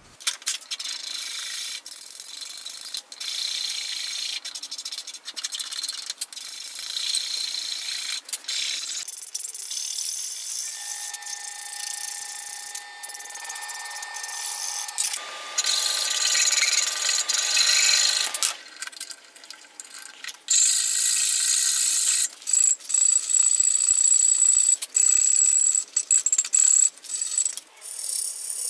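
Abrasive rubbing and scraping on a wooden hand-plane tote clamped in a vise: hand shaping and sanding strokes, with short pauses between bouts. Near the end, a strip of sandpaper is pulled back and forth around the handle.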